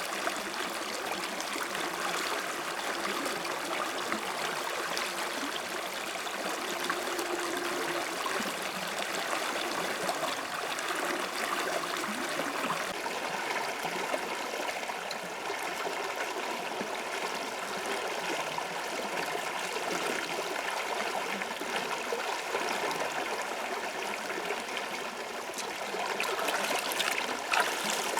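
Water flowing in a stream, a steady rushing and trickling, with a few light knocks near the end.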